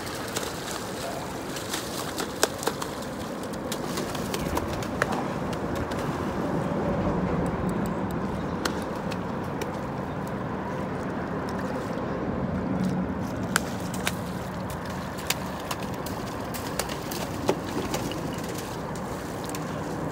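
A hooked ray thrashing and splashing at the water's surface beside a pier piling, with scattered sharp clicks and knocks.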